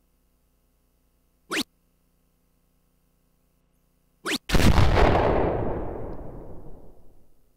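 Electronic dartboard game sound effects: a short rising zip as a dart scores about 1.5 seconds in, a second one a little after four seconds, then at once a loud explosion effect that fades over about three seconds. The explosion is the award sound for a "Low Ton", a three-dart turn of 100 or more.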